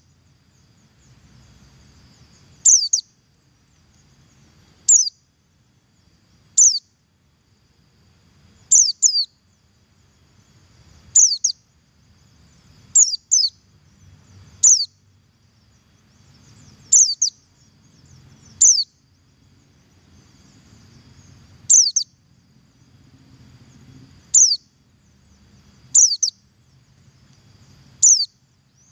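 Buxtoni white-eye (pleci) giving its short, sharp double call, a quick high note falling in pitch, often doubled, repeated about every two seconds.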